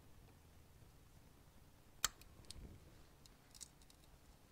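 Locking pliers (vise grips) snapping shut on a small metal shaft: one sharp click about two seconds in, followed by a few faint metallic clicks of handling.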